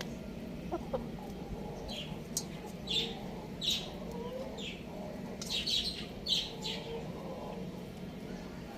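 Small bird chirping, about ten short, high, falling chirps in quick succession over a steady low hum.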